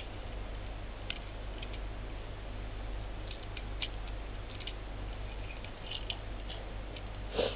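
Faint, scattered clicks and taps of the small plastic Transformers Animated Ratchet Legends class figure being handled and its ball-jointed legs bent, over a steady low hum.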